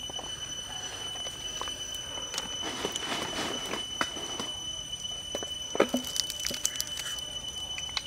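A steady, high-pitched insect drone, with scattered crackles and clicks as a piece of crisp deep-fried snake is picked up and pulled apart by hand; the sharpest clicks come about six seconds in.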